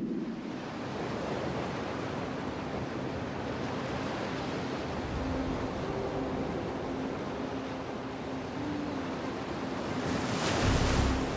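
Surf rushing onto a sandy beach: a steady wash of breaking waves, with a louder surge of surf near the end.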